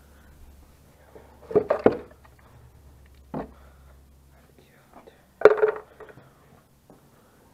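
Tools clanking against the metal of a baler pickup while the teeth and bands are being taken off: a few separate knocks, a quick double one about a second and a half in, a short one near the middle and the loudest about five and a half seconds in.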